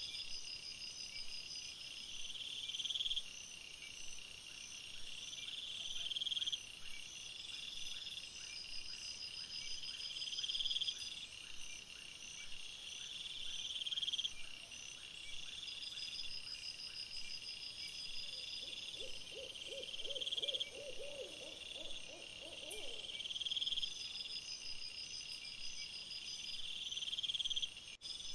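Night-time insect chorus: high, shrill buzzing phrases that repeat every three to four seconds over a constant high hiss. Faint rapid ticking runs through the first half, and a brief low rapid trill sounds near the end.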